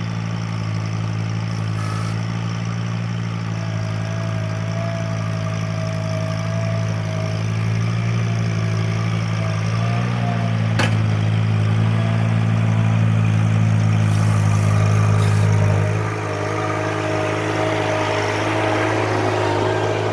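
Ventrac compact tractor's engine running steadily as the machine is unloaded, with a higher whine that comes and goes. There is a single sharp click about eleven seconds in, and the engine note drops about sixteen seconds in.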